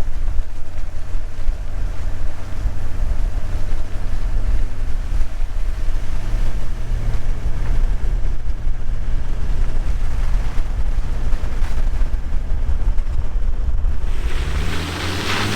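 Four-wheel drive driving along a wet bush track: a steady low rumble of engine and tyres. Near the end the engine revs up with a rising note and a louder rush of noise.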